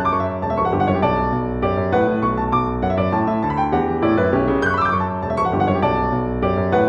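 Background piano music, many notes played in a steady flow.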